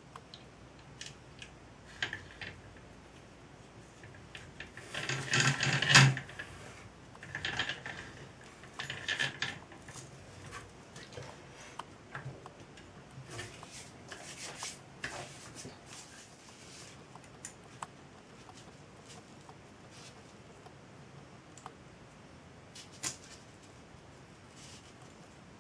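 Scattered clicks, taps and rattles of small metal parts and hand tools being handled while a model steam traction engine is reassembled. The loudest, a short rattling scrape, comes about five to six seconds in, with smaller clusters just after and a sharp click near the end.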